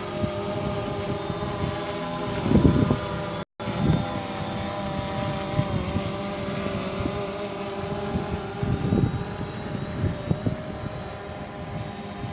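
A motor running steadily, with low uneven rumbling underneath and a brief dropout about three and a half seconds in.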